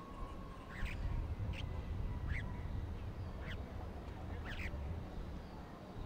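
Bank myna calling: five short, sharp calls about a second apart, over a low background rumble.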